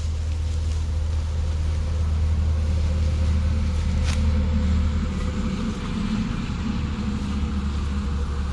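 Foot-pedal paddy thresher's spinning drum running with a steady low drone, with one brief click about four seconds in.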